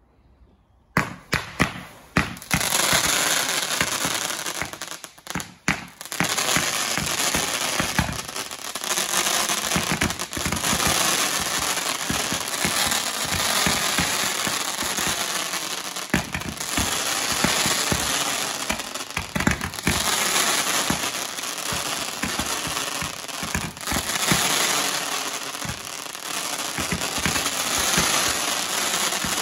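Thunder Blast 56-shot firework barrage cakes firing: a few separate sharp bangs about a second in, then a rapid, unbroken run of shots and bursts that starts to thin out near the end.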